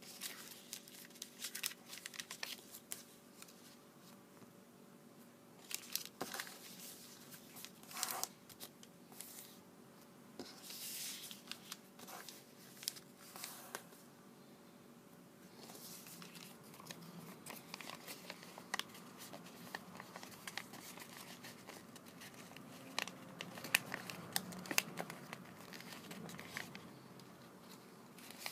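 Sheet of origami paper being folded and creased by hand: irregular crinkling and rustling, with sharp swipes and clicks as the folds are pressed down.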